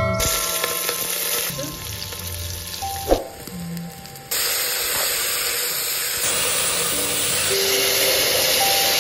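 Food sizzling as it fries and is stirred in a pot, the sizzle changing abruptly at edits, over soft background music. There is a single sharp knock about three seconds in.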